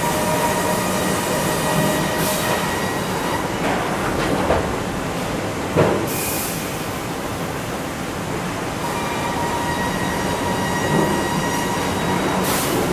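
Sawmill docking line running: conveyors and transfer chains moving boards, with a steady machine whine and a few knocks of timber, the loudest about six seconds in. Three short bursts of hissing.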